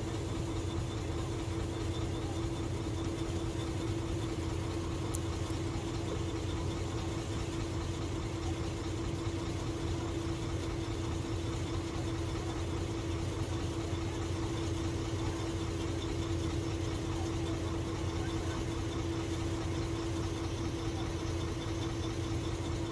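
Vehicle engine idling steadily, heard from inside the cab, with an even low rumble and a steady hum.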